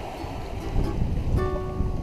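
Background ukulele music over a steady low rush of wind and water. The plucked notes mostly drop out for the first second and come back about halfway through.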